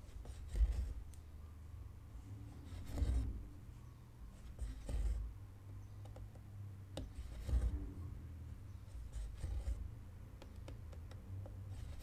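Cross-stitch needle pushed through 14-count cotton cross-stitch fabric stretched in an embroidery hoop, and the thread drawn through after it. A short scratchy pull with soft knocks on the hoop comes about every two seconds.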